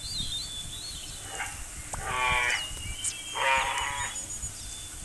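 Two animal calls, each about half a second long, one about two seconds in and the other about three and a half seconds in, with thin high chirps like birdsong around them.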